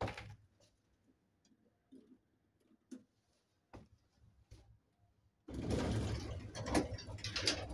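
Mechanism of a 1965 MZS passenger elevator starts suddenly about five and a half seconds in and keeps going, a loud mechanical rattle over a low hum. Before it there are a few scattered clicks and knocks.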